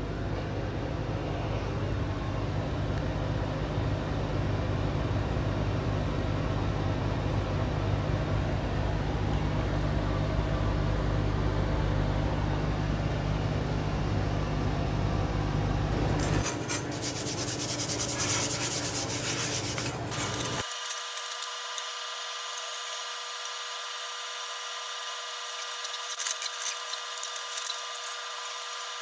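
Exhaust fan running steadily, drawing air through newly installed smoke ducting, with a low hum under a rushing noise. About sixteen seconds in it stops, and scraping and rasping of metal tools and bar stock take over.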